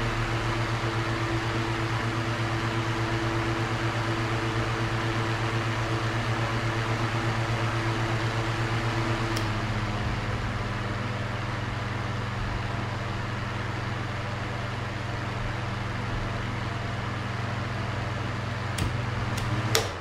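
Electric table fan running with a steady whir and motor hum. A click about halfway through is followed by the hum settling at a different pitch, and a few sharp clicks come near the end.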